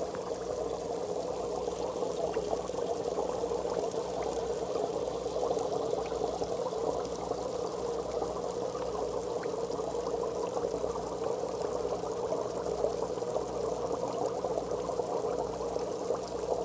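Aquarium water rushing and bubbling at the surface under a strong river-manifold current, a steady sound with a low hum underneath.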